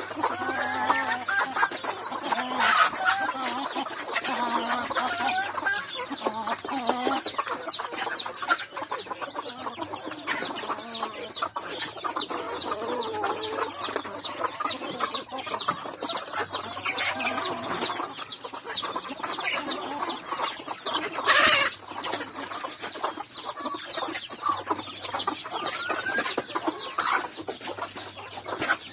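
A flock of chickens clucking and squawking as they crowd together feeding, with calls overlapping densely throughout and one short, loud burst about twenty-one seconds in.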